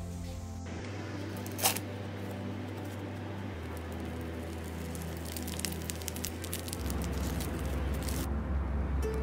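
Slime being squished and pressed by hand, including a white foam-bead slime, giving wet, sticky squishing with scattered small clicks.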